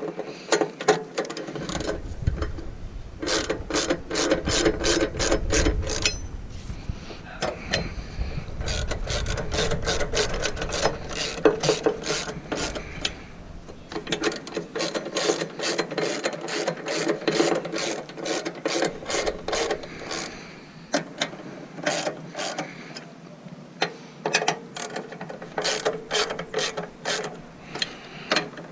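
Hand ratchet wrench clicking in repeated quick bursts as it turns a battery hold-down bolt, with short pauses between the runs of clicks.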